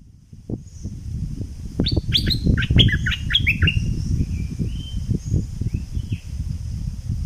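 Bulbul singing: a quick run of about eight sharp whistled notes, each falling in pitch, about two seconds in, then a few scattered short whistles. A low, uneven rumble runs underneath.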